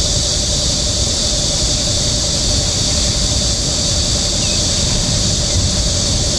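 Steady outdoor background noise: a low, fluttering rumble like wind on the microphone under a continuous high-pitched drone, unchanging throughout.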